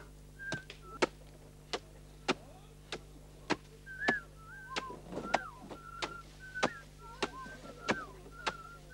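Sharp knocks about every half second as the white pith of a felled sago palm is chopped at with a hand tool. Short high whistled notes, bending up or down, come between the strokes.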